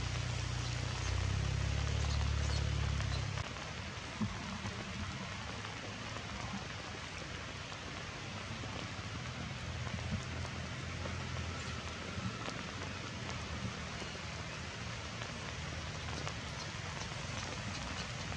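Steady rain falling on forest leaves, an even hiss with scattered drop ticks. A low rumble lies under it at the start and cuts off suddenly about three seconds in.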